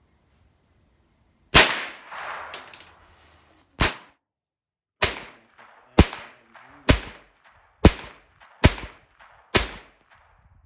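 Eight single shots from an AR-style semi-automatic rifle. After a pause of over a second, two shots come about two seconds apart, then six more at a steady pace of about one a second. Each shot is loud and sharp, with a short echoing tail.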